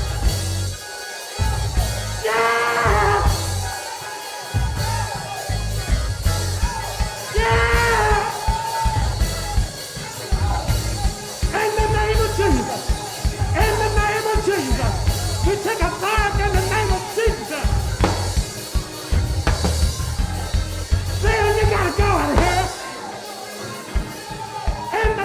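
Live gospel praise music: a band with drums and a steady, heavy bass beat, with a voice singing wordless lines over it.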